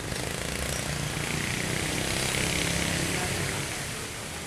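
KAI diesel locomotive running as it approaches: a rumbling drone with a hiss on top that swells about two seconds in and eases off near the end.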